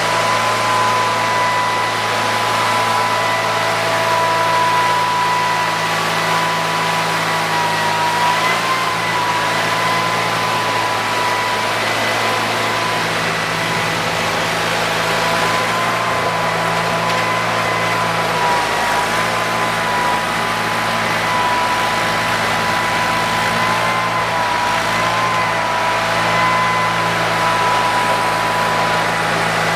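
Sears garden tractor engine running steadily, with a thin high whine that wavers slightly in pitch now and then.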